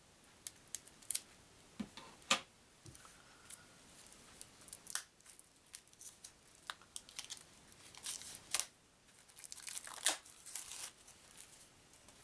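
Wrapping on a small pack of game cards being torn open and crinkled: scattered sharp crackles and snaps, with a denser run of crinkling about eight seconds in.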